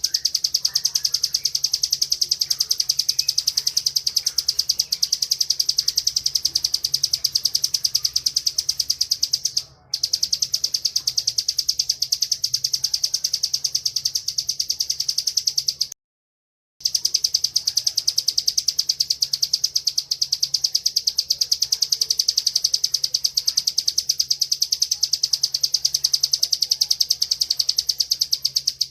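Bar-winged prinia (ciblek) in full song with its 'ngebren' delivery: a continuous, very rapid, high-pitched buzzing trill. It breaks off briefly about ten seconds in and drops out completely for under a second about sixteen seconds in.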